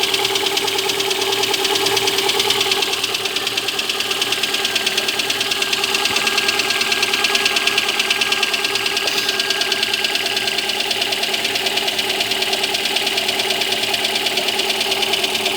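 Lada Granta engine running cold with a fast, even knocking tick; the owner suspects the valves.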